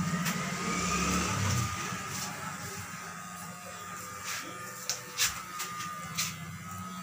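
Cordless electric hair clippers buzzing as they trim short hair at the side and back of the head, with a few sharp clicks in the second half.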